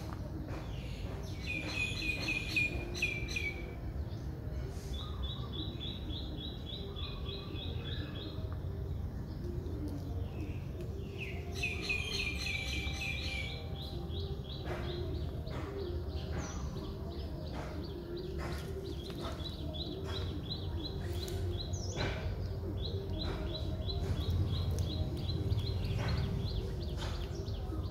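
Birds chirping and singing in short phrases of quickly repeated notes, some falling in pitch and some fast trills, over a low steady rumble. Faint short clicks come from the cats crunching dried fish.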